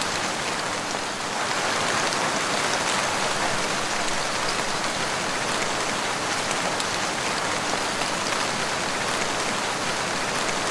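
Steady rain falling: an even hiss with fine drop ticks.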